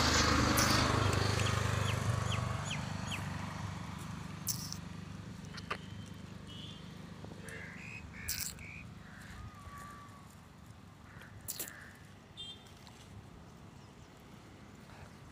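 A passing road vehicle fades away over the first few seconds, then a few short bird calls and chirps, some like crow caws, over a quiet rural background.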